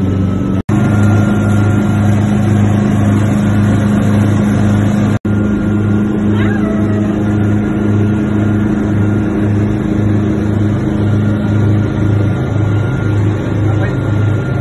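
A motorboat's engine running steadily at speed, heard from inside the cabin as a loud low drone with a throb that beats about twice a second. The sound breaks off for an instant twice.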